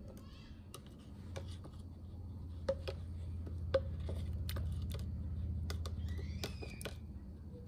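A metal spoon stirring boba pearls and syrup in a plastic cup, with irregular clicks and scrapes of the spoon against the cup over a low steady hum.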